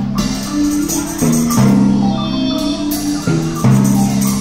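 Children's percussion ensemble of marimbas, xylophone and drum kit playing a tune, with pitched mallet notes over held low notes that change every second or so, and a jingling cymbal shimmer on top.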